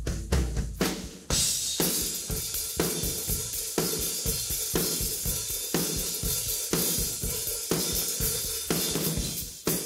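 Isolated cymbal, tom and room-ambience track of a rock drum kit. At first there are steady hi-hat-like strokes. About a second in, cymbals crash and keep washing over hard hits that land roughly once a second.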